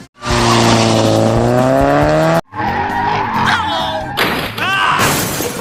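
Loud car-engine and tyre-skid sound effect lasting about two seconds, a strong engine hum under a skidding hiss, which cuts off abruptly; after a short gap comes a jumble of shorter sliding effect sounds and a burst of hiss.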